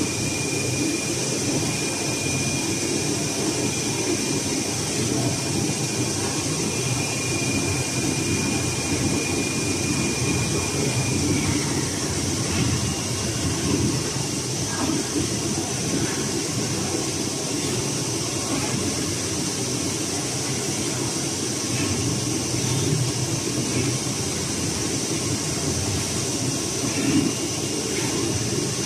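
RUK three-head digital flatbed cutter running as its tool heads cut a printed packaging sheet: a steady mechanical hum with a constant high whine. A higher tone in the hum slides down and drops out about eleven seconds in.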